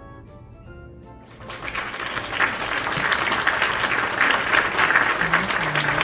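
Applause, starting about a second in and growing loud, over soft background music.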